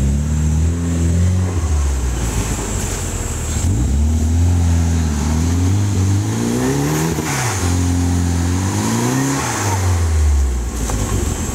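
Off-road 4x4's engine revving up and falling back repeatedly, under load as it climbs a steep muddy slope, with a steady high-pitched whine above it.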